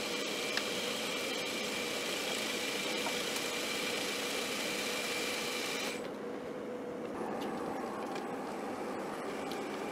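Small lathe running while it turns a piston blank: a steady machine whir with a high, even whine. About six seconds in the sound changes abruptly and turns duller as a narrow tool cuts a groove into the blank.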